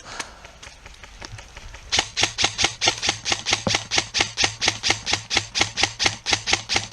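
Rapid, even mechanical clicking close by, about six sharp clicks a second, starting about two seconds in and stopping near the end.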